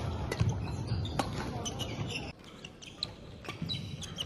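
Badminton play on a wooden sports-hall court: sharp racket strikes on the shuttlecock and short squeaks of shoes on the floor, echoing in the hall. A little over halfway through, the overall sound drops quieter.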